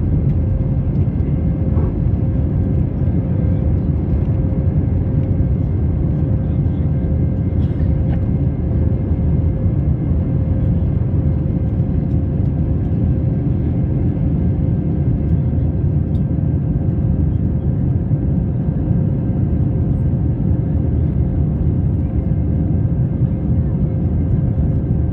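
Airbus A320 climbing after takeoff, heard from inside the passenger cabin: a loud, steady, deep rumble of the jet engines at climb power, with a constant hum running through it.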